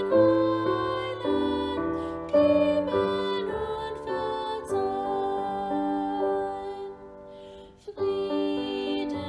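Slow instrumental keyboard music: held chords that change every second or so, with a brief near-pause about two thirds of the way through before the playing resumes.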